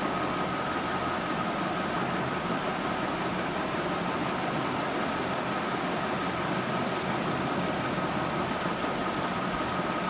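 Steady outdoor background hiss with a faint, steady high tone running under it.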